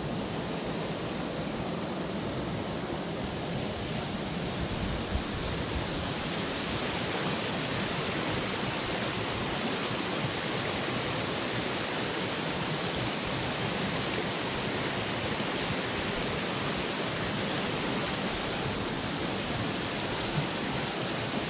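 A small rocky mountain stream running over riffles and little cascades: a steady rushing of water.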